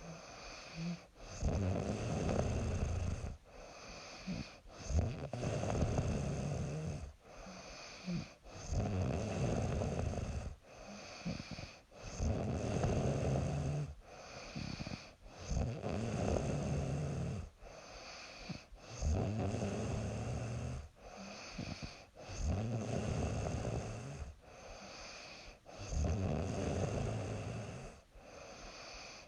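A young woman snoring in her sleep, a rough snore on each breath in an even rhythm, about every three and a half seconds.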